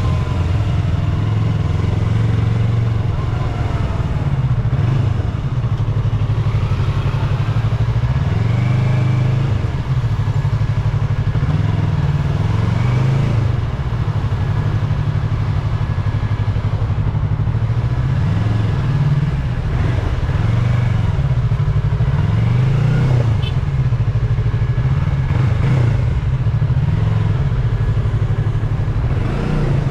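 Yamaha YZF-R3's parallel-twin engine through its stock exhaust, riding in traffic with the revs rising and falling over and over.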